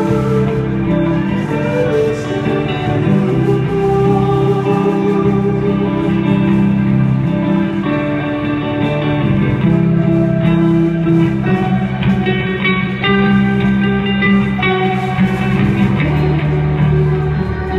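Rock band playing live, led by electric guitar, with sustained notes ringing on steadily.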